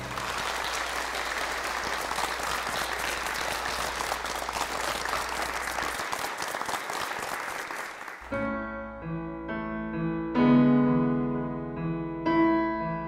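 An audience applauding, a dense clatter of clapping for about eight seconds that cuts off abruptly. Solo piano then takes over with slow, separate notes.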